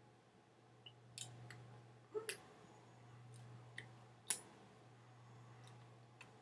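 Near silence: a steady low hum with about eight faint, sharp clicks scattered through it, the loudest about four seconds in.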